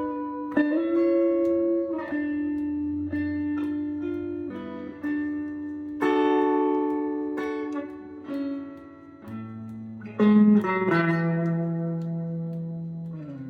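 Instrumental guitar passage in a slow song: plucked notes that ring on and change every second or two, with lower bass notes entering about two thirds of the way through.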